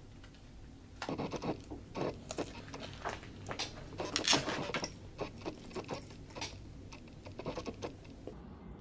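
Plastic wrapping crinkling and rustling as it is handled, in irregular crackles that start about a second in.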